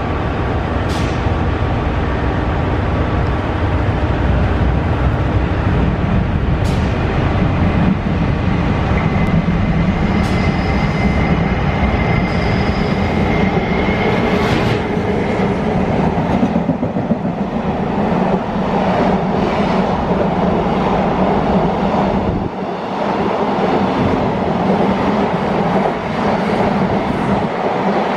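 A JR Freight EF210 electric locomotive hauling a container freight train past without stopping: a loud, steady rumble as the locomotive approaches and passes, then the container wagons rolling by. A few sharp clicks come from the wheels over rail joints.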